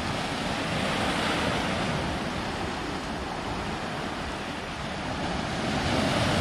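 Small ocean waves breaking on a sandy beach and surf washing up the shore, swelling about a second in and again near the end as each wave breaks.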